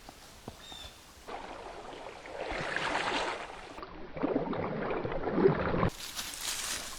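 Irregular crunching and rustling of dry leaves and brush underfoot, starting about a second in and going on in uneven surges. A single short bird chirp comes just before it.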